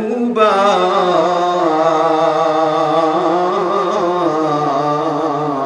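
A man singing a Bengali devotional song, drawing one phrase out into long held notes that waver slowly in pitch. A new phrase begins just after the start.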